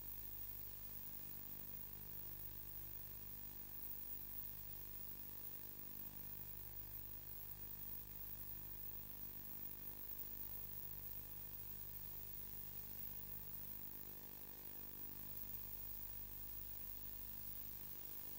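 Steady low electrical hum with faint hiss, unchanging throughout, with no sound of the boat or sea coming through.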